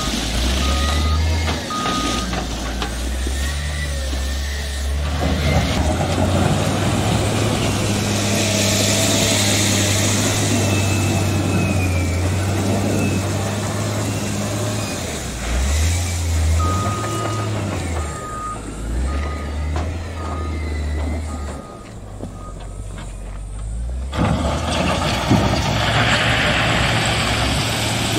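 CAT 950 GC wheel loader's diesel engine running and rising and falling in pitch as the loader pushes and levels crushed basalt. Its reversing alarm beeps in a steady series at the start and again about two-thirds of the way through. Loose stone scrapes and rattles under the bucket.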